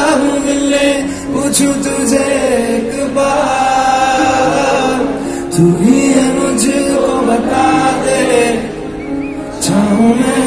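Live male vocal sung to piano accompaniment, amplified through a concert sound system: long held, gliding sung notes over sustained piano chords.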